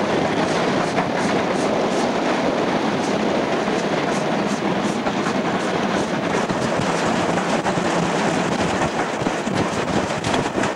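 Ok22-31 steam locomotive running at speed, heard from inside the cab: a steady loud rush with a quick, regular beat of exhaust and wheel noise. Near the end wind buffets the microphone.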